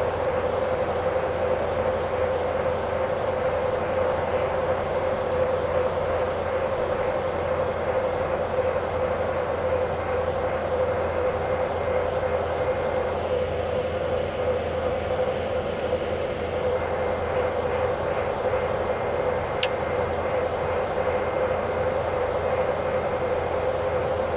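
Steady road and engine noise of a car driving at highway speed, heard from inside the cabin, with a constant low drone. A single faint click comes near the end.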